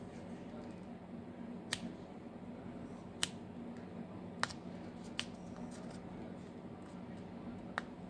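Sharp plastic clicks, about five spread over several seconds, as the back cover of a Samsung Galaxy M22 phone is pried off by hand and its retaining clips snap loose from the frame.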